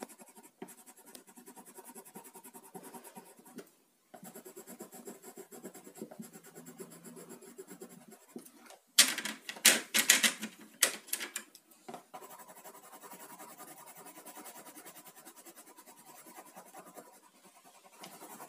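Coloured pencil scratching steadily on paper as it colours in. About nine seconds in there are a few loud clatters of pencils knocking in a plastic pencil case, then the scratching of a pencil on paper goes on.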